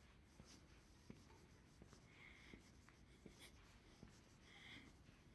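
Near silence: faint room tone with a few soft ticks and brief faint sounds.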